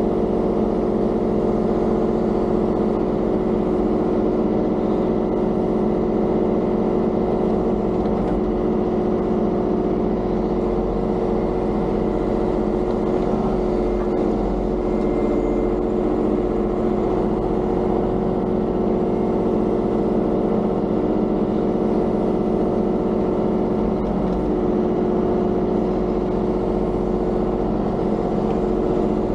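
Diesel engine of a compact earthmoving machine (mini excavator or track loader) running at a steady speed while stripping gravel and backfilling.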